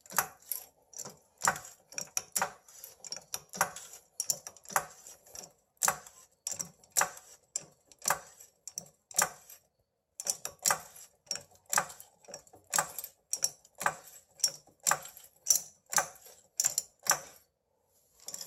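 Hydraulic floor jack being pumped: a long series of sharp metallic clicks, about one to two a second, pausing briefly about ten seconds in.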